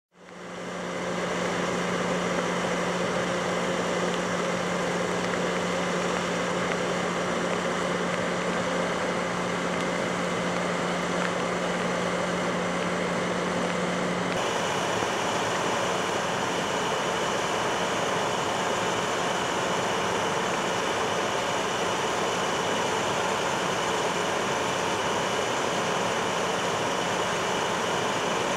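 Steady drone of fire apparatus engines running. It fades in at the start, and a low hum in it stops abruptly about halfway through, where the noise changes.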